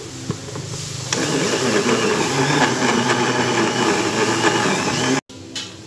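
Countertop blender motor running, blending a liquid banana batter. It comes up to full, steady speed about a second in and cuts off abruptly near the end.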